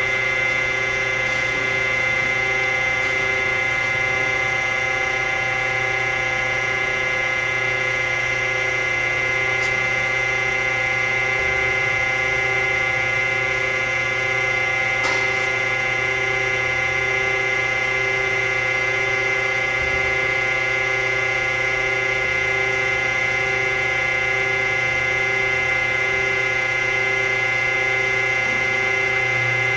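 Harig EZ Surf II CNC surface grinder running: a steady machine whine and hum with a faint pulse about once a second, and a single click about halfway through.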